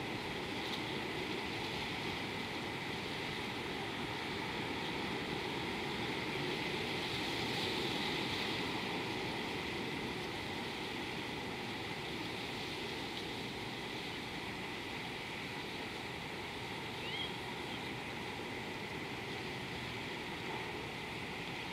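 Steady outdoor background hiss with a faint drone in it, swelling slightly about a third of the way in, and one short rising chirp near the end.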